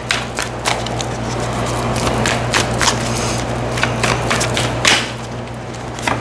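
Tarot cards being handled, shuffled and drawn from the deck: an irregular run of soft card slaps and clicks over a steady low hum.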